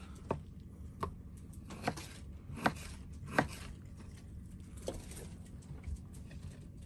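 A knife chopping food on a cutting board: about seven separate knocks at uneven intervals, the first four roughly three-quarters of a second apart, over a steady low hum.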